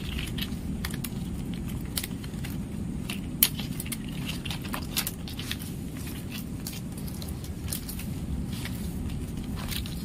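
Dry coconut palm leaflets crackling and clicking irregularly as they are woven by hand into a mat, with one sharper click about three and a half seconds in. A steady low rumble runs underneath.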